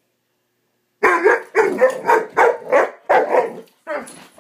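Greater Swiss Mountain Dog puppy barking in a quick run of about eight loud barks starting about a second in, with softer barks near the end.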